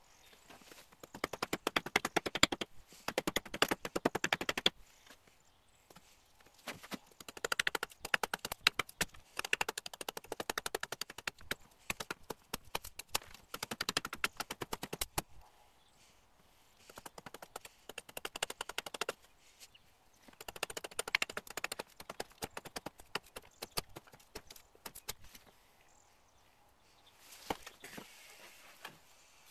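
Carving hatchet, a Hultafors Bruks, chopping into a green trembling aspen spoon blank held upright on a log chopping block. The strikes come rapidly, in bursts of a few seconds with short pauses between.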